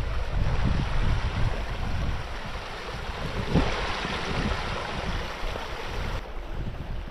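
Shallow stream babbling over rocks, with wind buffeting the microphone as a low rumble in the first couple of seconds. The rushing water is loudest about halfway through.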